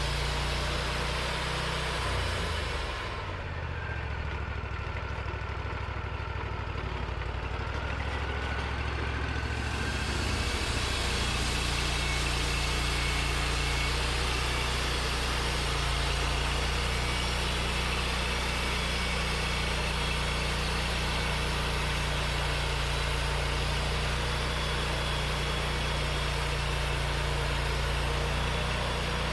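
Portable sawmill's engine running steadily. About ten seconds in, the sound fills out and then holds even.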